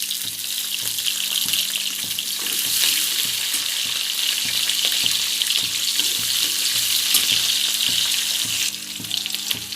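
Green chillies and whole spices (coriander seeds, fennel, mustard seeds) sizzling in hot oil in a kadhai. The sizzle grows louder about two and a half seconds in and eases off near the end.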